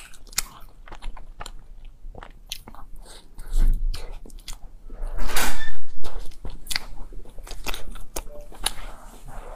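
A person chewing and biting soft chocolate-filled bread, with many short wet mouth clicks and smacks. A louder, longer chewing sound comes about five seconds in.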